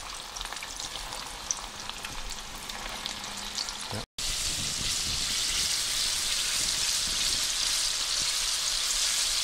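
Coated chicken pieces frying in a wide pan of hot oil: a steady sizzle with crackles. It cuts out briefly about four seconds in, then comes back louder and denser from a pan packed with bubbling chicken.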